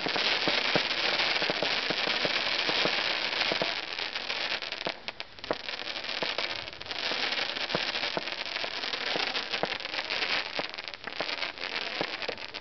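Fireworks going off close by: a dense, continuous hissing crackle packed with many sharp pops. It eases briefly about five seconds in, then thickens again.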